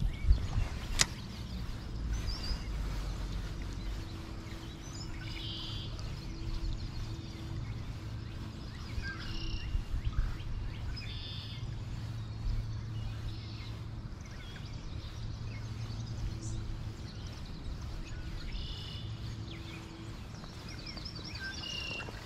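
Songbirds chirping in short, repeated high phrases every few seconds over a steady low hum and background noise, with one sharp click about a second in.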